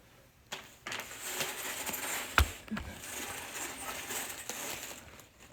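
Rustling handling noise close to the microphone, with one sharp knock about two and a half seconds in.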